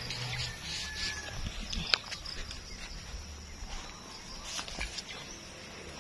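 Footsteps and rustling through tall grass with handling noise from the phone, and a sharp click about two seconds in.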